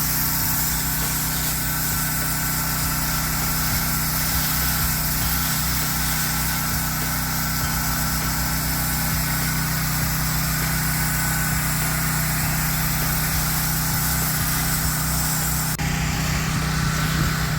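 Gas-engine pressure washer running steadily, with the hiss of water spraying from the wand while the house walls are pre-wet.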